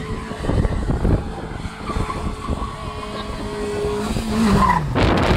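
1994 Toyota Corolla skidding with its tyres squealing and the engine running hard; near the end the engine note falls away and a louder rough noise takes over.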